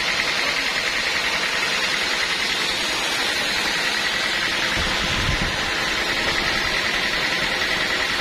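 Sawmill band saw running, a steady noisy sound with a high hum held throughout.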